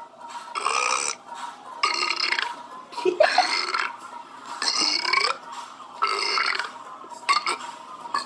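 A man belching over and over: about six loud, pitched burps, each around half a second long and roughly a second apart, some sliding in pitch.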